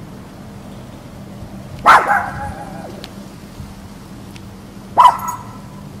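A dog barking twice, about three seconds apart: two loud, sharp barks.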